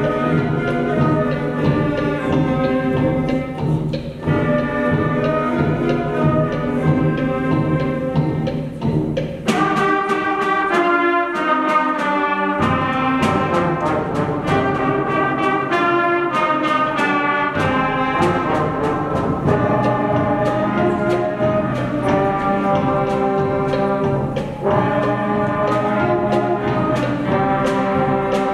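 School concert band playing: woodwinds and brass in sustained chords. About ten seconds in, the low instruments drop away and the trumpets and other brass carry the tune over regular sharp percussion strokes.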